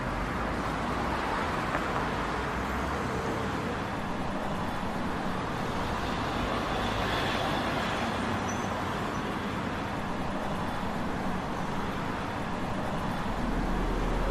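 Steady road traffic noise: a continuous hiss of passing cars with no distinct events. A low rumble builds near the end.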